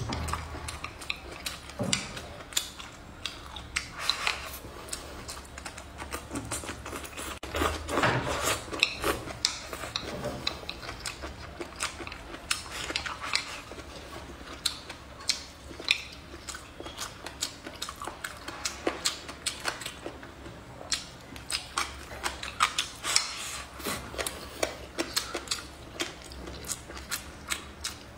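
Close-miked mukbang eating sounds: chewing of braised pig's trotter, with frequent sharp, irregular clicks of wooden chopsticks against the plate.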